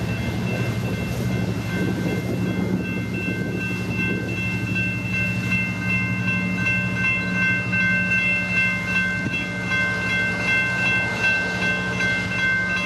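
EMD F49PHI diesel locomotive running steadily as it pulls its passenger train away. A grade-crossing warning bell keeps ringing over it in a steady high tone.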